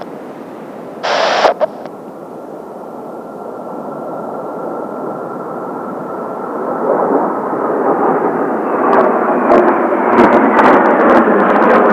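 Kawasaki T-4 jets of the Blue Impulse display team flying, their engines' rush and faint whistle swelling steadily louder as they approach. A brief burst of hiss comes about a second in.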